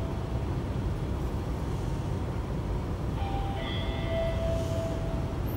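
Hiroden 5100-series tram 5108 running, heard from inside the car: a continuous low running rumble. A set of steady whining tones fades out about half a second in and comes back for about two seconds from three seconds in.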